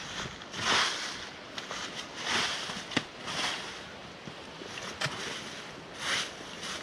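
Rustling in short bursts, several times, with a few sharp clicks in between.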